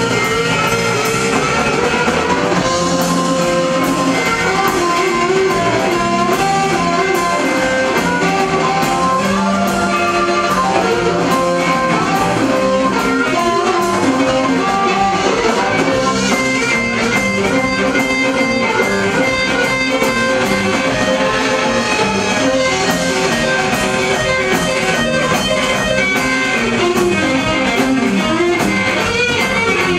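Live blues band playing an instrumental passage: electric guitar and harmonica over bass guitar and a drum kit keeping a steady beat.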